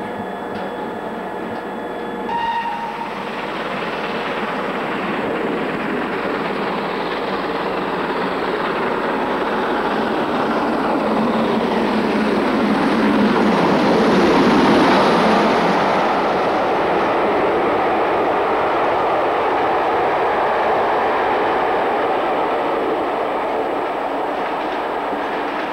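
BR Standard Class 4 2-6-4 tank steam locomotive and its coaches running through a station, wheels clattering over the rail joints. A short whistle sounds about two and a half seconds in, then the noise builds to a peak about halfway through as the engine passes, with a falling pitch, and eases off as the coaches go by.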